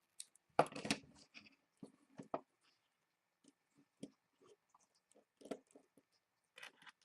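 Small clicks and rattles of a precision screwdriver bit being changed in its handle, with a short cluster of rattling clicks about a second in, followed by scattered light ticks.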